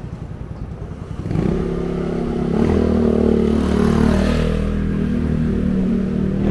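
A motor vehicle's engine passes close by. It comes in suddenly a little over a second in, runs at a steady pitch, and is loudest about four seconds in.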